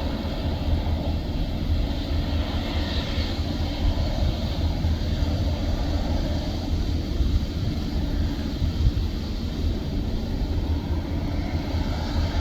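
Airplane engine noise: a steady, even rumble with no distinct events.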